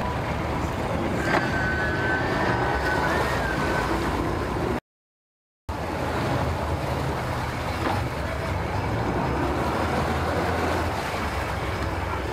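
Twin Mercury 300 outboard motors running at idle in gear as the boat creeps along, a steady low rumble with water sloshing. The sound cuts out completely for under a second about five seconds in.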